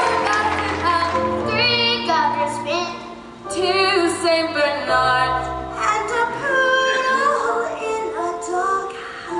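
Children singing into a handheld microphone, one after another, over a live band, with held sung notes and a brief break about three seconds in.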